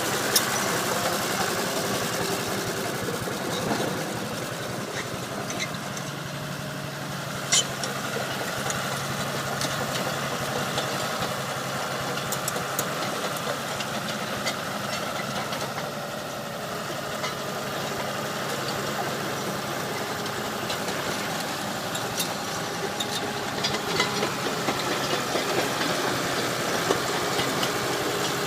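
Caterpillar D3C XL crawler dozer's diesel engine running steadily at idle. There is one sharp click about seven and a half seconds in.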